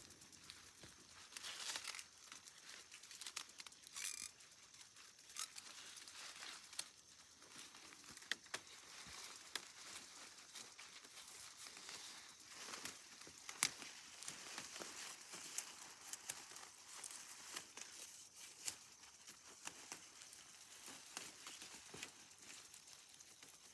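Faint rustling and crinkling with scattered small clicks and crackles, at an uneven pace, from hands working among tomato plants while tying them up with twine.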